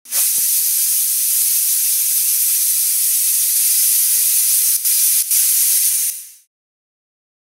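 Stovetop pressure cooker venting steam under pressure: a loud, steady hiss that breaks briefly twice and then fades out about six seconds in.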